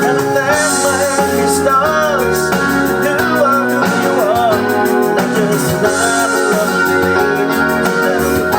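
Music from a Roland E-500 keyboard's sequencer playing a 1990s homemade MIDI backing track: a band-style arrangement with keyboard chords and a lead melody that bends and slides in pitch.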